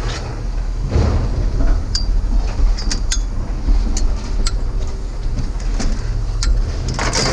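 Vehicle engine idling with a steady low rumble, with scattered light metallic clicks and clinks over it and a short burst of noise near the end.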